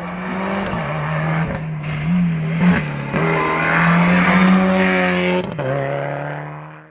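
Rally car engine running at high revs close by, its pitch mostly level with several brief dips as the throttle is lifted. It is loudest a little after the middle, and the sound cuts off abruptly at the end.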